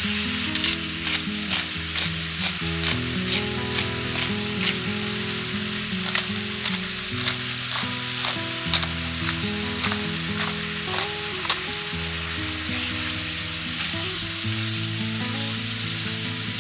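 Food sizzling in a hot frying pan while being stirred, the spatula tapping and scraping against the pan about twice a second at first, then more irregularly, the taps stopping about three quarters of the way through while the sizzle goes on.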